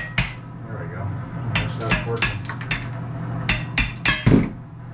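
Sharp metallic knocks and clanks of tools striking metal plumbing parts, in uneven clusters, over a steady low hum.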